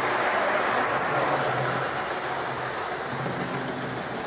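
Model railway train running: a Hornby Holden 0-4-0 tank locomotive's small electric motor whirring as it hauls seven coaches, wheels rolling over the track.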